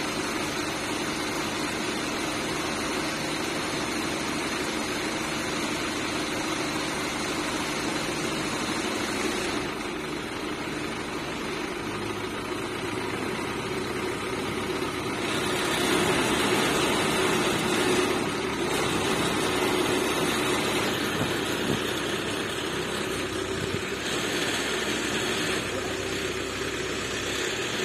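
Kaishan KG420 crawler down-the-hole drill rig's engine running steadily, its note and load shifting several times as the hydraulic boom is worked, and louder for a few seconds past the middle.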